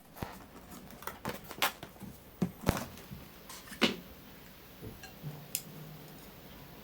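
A run of light, irregular clicks and knocks from objects being handled, about a dozen in the first four seconds, the loudest just before and after the middle, then sparser and fainter.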